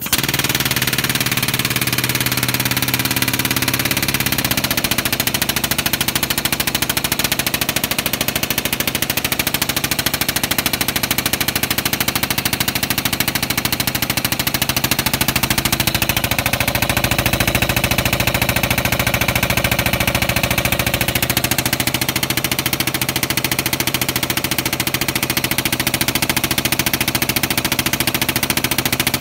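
Pneumatic cab lift pump on a Peterbilt cab-over truck switching on abruptly and running steadily, driving the hydraulic cylinders that raise the cab.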